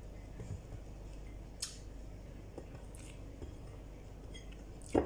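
Eating rice by hand from a plate: a few short, sharp clicks and taps of chewing and fingers on the dish, the loudest near the end, over a faint steady low hum.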